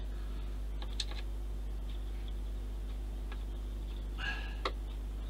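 Small sharp clicks of fingers and thread working against a plastic model ship's deck fittings, once about a second in and again near the end, over a steady low hum.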